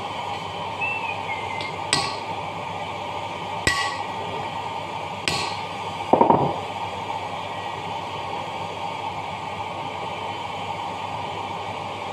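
Hammer striking a drift to seat a new ball bearing in the dough mixer's gearbox housing: three sharp metallic strikes about a second and a half apart, each with a short ring, then a duller clatter about six seconds in.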